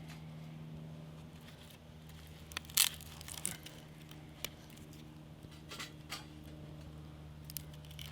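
Scattered sharp crackles and snaps of a small fire catching after being lit with a match, the loudest about three seconds in, over a steady low hum.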